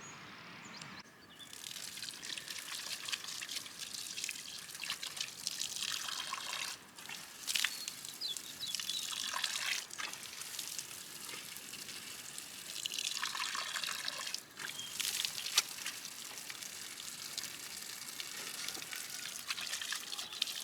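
Water running and trickling steadily, with a few brief sharp knocks over it.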